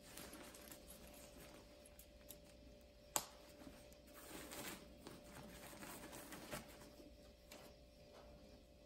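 Faint rustling of the nylon shell of a down quilt being handled, with one sharp click about three seconds in as a press snap on the foot box is fastened.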